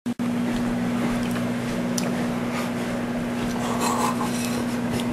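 Microwave oven running: a steady, even electrical hum with one strong low tone.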